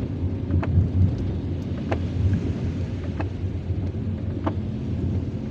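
Car interior while driving in heavy rain: a steady low rumble of engine and tyres with the hiss of rain, and a light click repeating about every second and a quarter.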